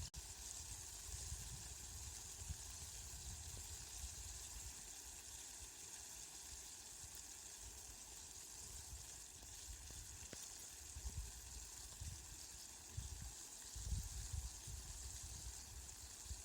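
Steady rain falling, an even hiss, with low rumbles that come and go, more often in the second half.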